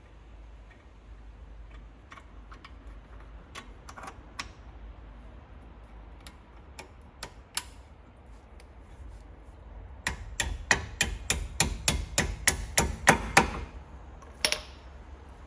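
Light metal hammer taps on a Brembo brake caliper, a few scattered ones and then a fast, even run of about five a second for some three seconds, with one more tap near the end: a tight-fitting part, likely the pad retaining pin, being driven home.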